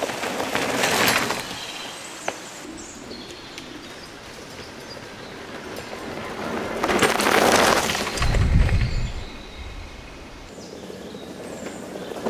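Electric mountain bike riding down a leaf-littered dirt forest track, its tyre noise swelling as it passes close about seven seconds in, then a brief low rumble. Birds chirp faintly in the background.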